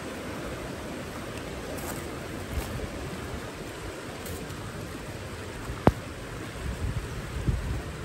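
Steady rush of flowing water, with one sharp click or knock about six seconds in.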